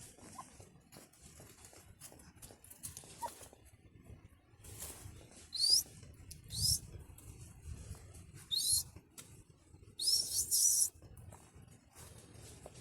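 American Foxhound puppies giving short, high-pitched rising squeals: three single squeaks spaced about a second apart, then a longer run of squealing near the end.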